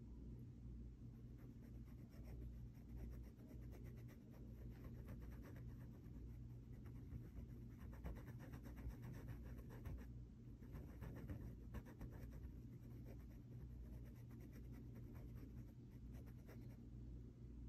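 Faint, quick scratchy strokes of a small sponge applicator rubbing pastel into fabric, coming in runs of rapid strokes with a short pause about ten seconds in.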